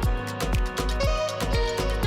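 Background music with a steady beat and pitched instrument notes.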